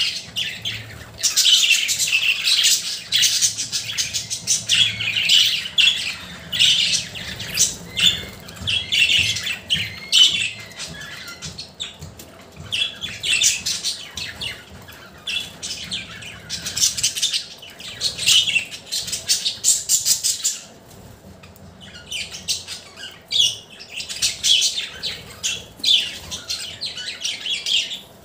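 Pet budgerigars chirping in quick, overlapping calls, with a short lull about three-quarters of the way through.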